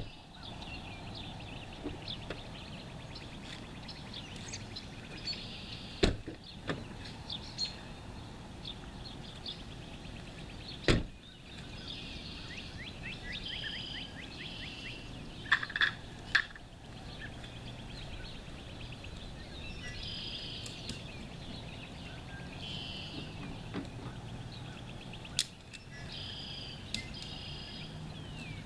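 Birds singing and chirping in repeated phrases over a steady outdoor background, with a few sharp knocks, the loudest about six and eleven seconds in and a pair about sixteen seconds in.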